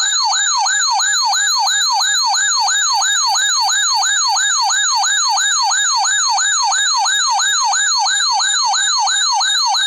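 Radio Shack 12-519 weather alert radio sounding its siren-style alarm, a swept tone repeating about three times a second, triggered by the SAME header of a Severe Thunderstorm Warning.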